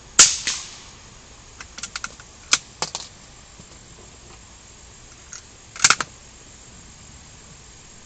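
A single .22 rimfire rifle shot with a short echo, followed by a run of light metallic clicks as the action is worked, and a sharper cluster of clacks near the end.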